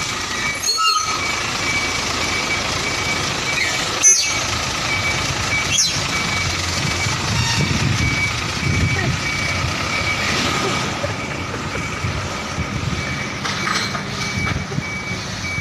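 Container truck's diesel engine running, with a reversing alarm beeping steadily over it. A few sharp knocks, the loudest about four seconds in.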